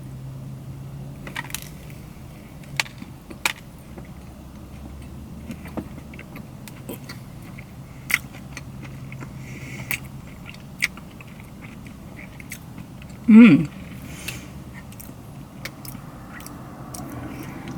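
Someone chewing a soft cookies-and-cream filled donut, with scattered wet mouth clicks.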